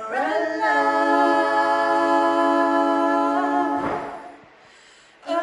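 Unaccompanied a capella singing: a voice holds one long, steady note for nearly four seconds, then a breath, a short pause, and the singing starts again near the end.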